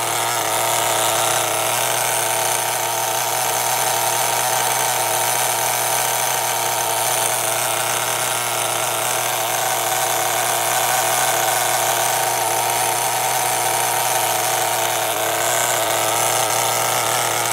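HPI Firestorm 10T nitro RC truck's small glow-fuel engine running steadily, without much change in revs.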